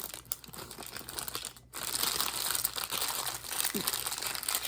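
Crinkling and crackling of something crinkly being handled: sparse crackles at first, then a dense, continuous crinkle from about two seconds in.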